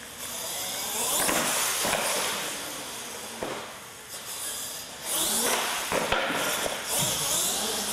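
Radio-controlled monster truck driving hard on a concrete floor: its motor whines up and down in pitch as it speeds up and slows, with tyres scrubbing and a few sharp knocks.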